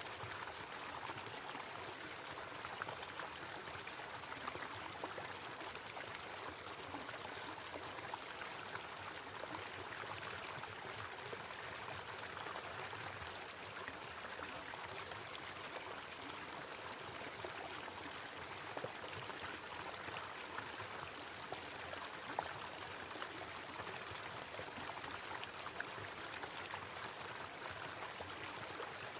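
Small waterfall: a steady rush of falling water, with small splashes scattered through it.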